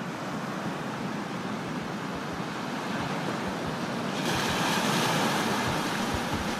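Sea waves washing and rushing, a steady surf sound that swells louder about four seconds in.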